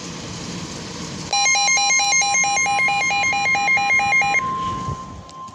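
Emergency alert tones: a steady tone near 1 kHz, the NOAA Weather Radio warning alarm tone. A rapid electronic beeping of about four pulses a second plays over it for about three seconds and then stops, leaving the steady tone. It marks the start of a severe thunderstorm warning.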